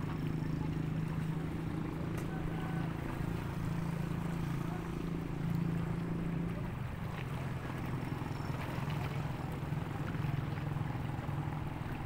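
A motorboat engine running steadily, a low droning hum that weakens briefly a little past halfway, over a faint wash of wind and water.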